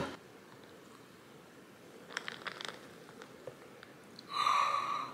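A few faint clicks of ice in a glass jar, then almond milk poured from a carton into the jar over the ice, starting about four seconds in.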